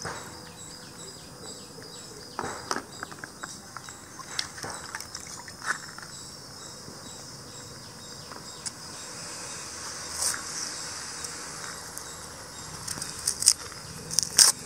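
Insects chirring steadily in the background, with scattered light clicks and handling taps. Near the end come a few sharper crackles as a knife peels the dry skin off a red onion.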